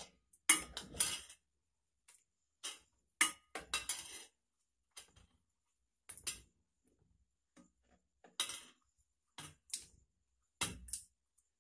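A steel spoon and a plate clinking against an aluminium pot in scattered short knocks as fried banana fritters are put one by one into coconut-milk sago curry.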